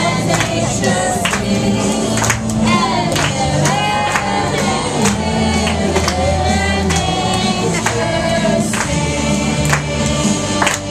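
Upbeat gospel-style song with a choir singing over a steady bass and drum beat.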